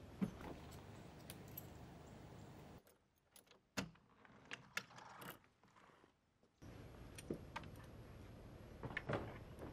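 Keys jangling, with a few sharp metallic clicks, over a steady background hiss that drops out for a few seconds in the middle and comes back.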